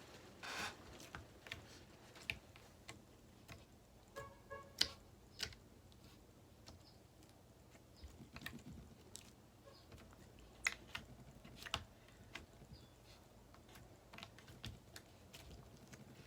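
Scattered soft clicks and pops of pink slime being squished and stretched by hand. A brief pitched sound comes about four seconds in.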